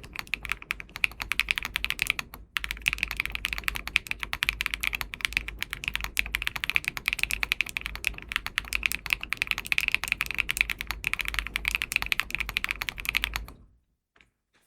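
Fast, continuous typing on a Dimple r3 40% custom mechanical keyboard with Wingtree Anon switches, an aluminium plate, plate and case foam, and MW Fuyu keycaps. There is a short break about two and a half seconds in, and the typing stops about a second before the end, with one faint click after.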